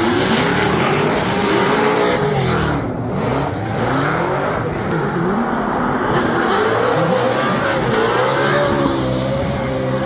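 Drift cars' engines revving hard, the pitch rising and falling several times as the drivers accelerate and lift through a run, with more than one engine heard at once near the end.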